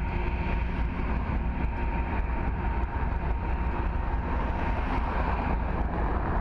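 BNSF freight train's covered hopper cars rolling past on the rails with a steady low rumble, the diesel locomotives drawing away ahead. A steady high whine runs under it and fades out about five seconds in.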